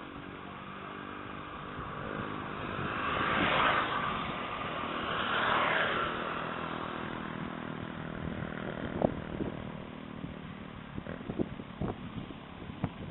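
Airplane engine droning overhead, swelling louder a few seconds in and then easing off, with a few knocks on the microphone near the end.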